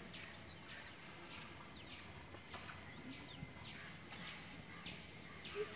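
Outdoor ambience: a steady high-pitched insect drone, with birds giving short downward-sliding chirps about twice a second over a low rumble. Near the end comes a quick run of short, low calls.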